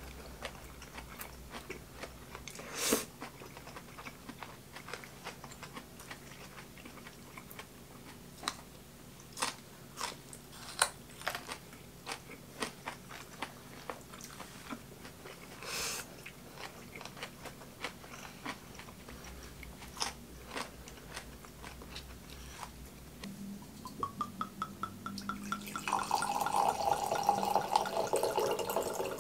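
Close-up eating sounds: a person chewing noodles, with scattered light clicks of wooden chopsticks and a spoon against a ceramic bowl. Near the end, red wine pours from a bottle into a wine glass, with a rising note as the glass fills.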